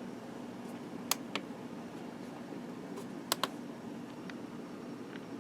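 Two pairs of sharp clicks, a button or key pressed and released, the first pair about a second in and the second about three seconds in, over a steady low hum.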